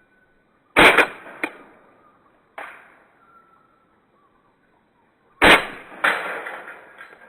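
Tokyo Marui Glock 17 gas-blowback airsoft pistol firing: sharp cracks, a loud pair about a second in and another loud pair near five and a half seconds, with a softer crack in between.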